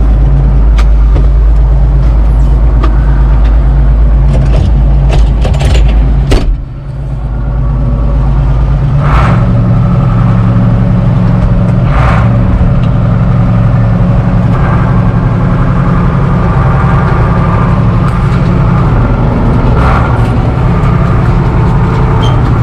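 Case tractor engine running steadily, heard from inside the cab, with a few sharp knocks and rattles. About six seconds in the sound dips briefly and changes, then the engine holds a fuller, steady note as the tractor drives across the field.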